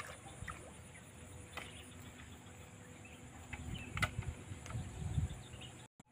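Faint outdoor ambience of insects chirring steadily, with scattered small clicks and a few low rumbles about four to five seconds in.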